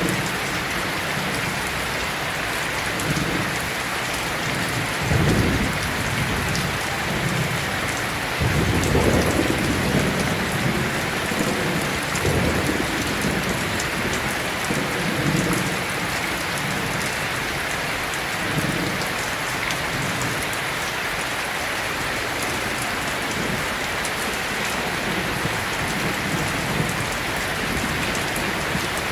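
Heavy, steady rain with thunder rumbling low several times, loudest about nine to ten seconds in.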